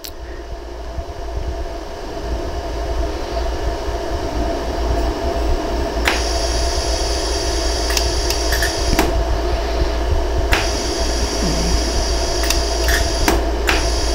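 Steady hum of a LaserStar pulsed laser welder running, with sharp clicks of single laser shots starting about six seconds in, irregularly spaced and coming faster near the end, as filler wire is welded onto a silver earring post joint to fill low spots.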